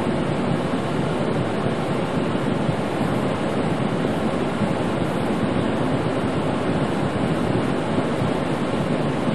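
Steady rushing noise inside a pickup truck's cab at highway speed on a wet, snowy road: the tyres on slush and the defroster fan blowing.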